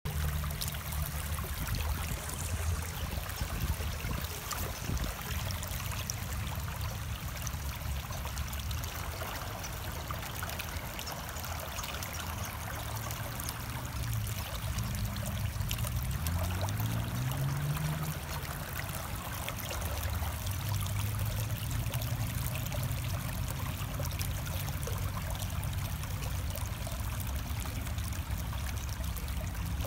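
Shallow stream running and trickling over rocks, a steady watery rush, with a low rumble underneath and a brief rising hum about halfway through.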